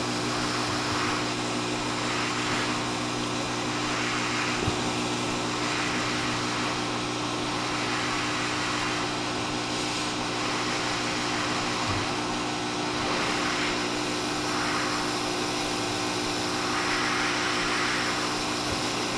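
Hot air rework station blowing hot air from its nozzle: a steady rushing hiss over a low constant hum, rising and falling slightly every second or two. Two faint ticks come partway through.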